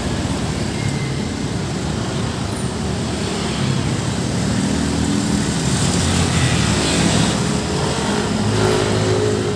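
Road traffic: motor vehicle engines and tyres passing by, growing louder in the second half.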